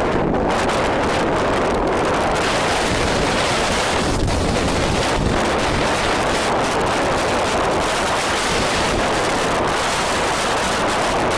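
Strong wind buffeting the microphone: a loud, steady rushing roar with no let-up.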